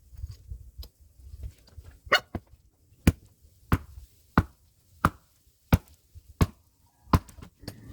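Hand axe striking firewood again and again, eight sharp blows about two-thirds of a second apart, starting about two seconds in, quickened by double-speed playback.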